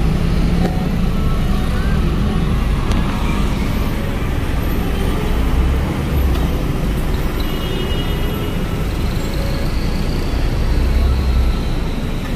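Steady low rumble of idling and creeping car and van engines in slow traffic, heard from inside a car's cabin.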